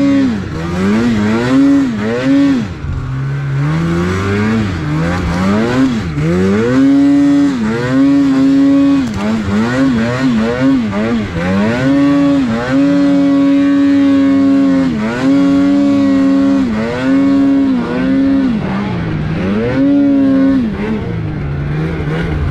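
Polaris RMK two-stroke snowmobile engine revving up and down over and over as the throttle is worked, held high for stretches of a couple of seconds, then dropping to a steady idle near the end.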